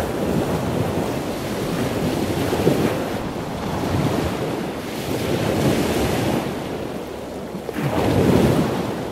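Wind rushing over the microphone with water noise, swelling and easing, strongest about eight seconds in.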